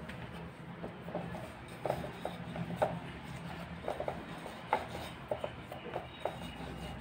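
A wooden rolling pin rolls a ball of puri dough back and forth on a rolling board, giving irregular light knocks and clicks as it is set down, pushed and lifted.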